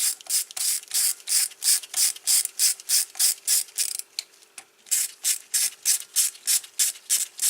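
Socket ratchet clicking in quick, regular strokes, about three to four a second, as bolts are run down, with a brief pause just past halfway.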